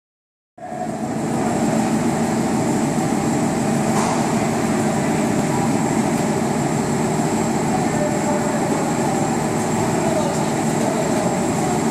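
Stretch-film wrapping packaging machine running with its conveyor moving: a steady mechanical din with a thin high whine, starting abruptly about half a second in.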